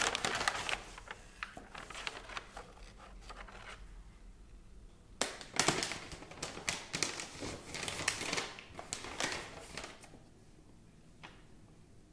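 Tissue paper rustling and crinkling in a cardboard shoebox, with short taps and clicks as shoes are unwrapped and handled; the rustling comes in two busy spells and dies away near the end.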